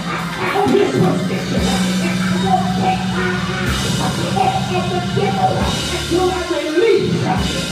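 Live church band music: a low chord held for several seconds under light drums, with raised voices singing or calling out over it.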